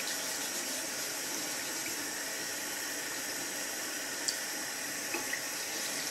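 Bathroom sink tap running steadily, its stream splashing onto a ceramic water-filter element as it is rinsed and scrubbed with a sponge. A couple of small ticks come about four and five seconds in.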